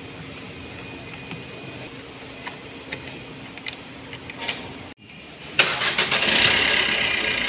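Faint metallic clicks of a spanner on a car battery terminal. About five and a half seconds in, the Maruti Suzuki Ertiga's diesel engine starts suddenly and keeps running: its first start after a second-hand Bosch high-pressure diesel pump was fitted.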